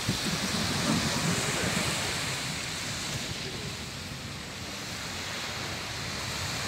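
Small waves washing onto a sandy beach, with wind on the microphone, a steady noise that eases slightly after the first couple of seconds.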